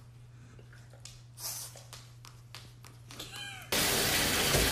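A few faint clicks, then a cat's short meow about three and a half seconds in. Right after it, water from a bathtub tap starts running abruptly, a loud steady rush that is the loudest sound.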